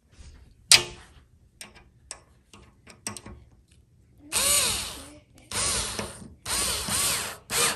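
Power drill driving a screw into the fireplace's sheet-metal top: three short runs of the motor, each about a second, the pitch rising and falling as the trigger is squeezed and let off. A sharp click comes about a second in.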